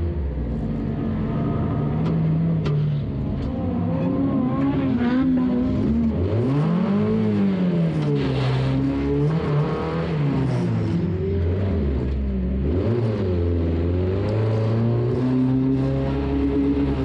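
A stock car's engine heard from on board, revving up and falling back over and over as the driver accelerates and lifts. A few sharp knocks come in the first three seconds.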